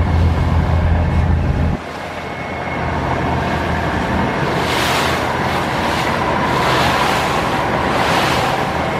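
Rushing water from a river launch running at speed, with wind on the microphone and a faint steady engine hum underneath; the noise swells and falls every second or two. About two seconds in, a heavier low drone cuts off abruptly.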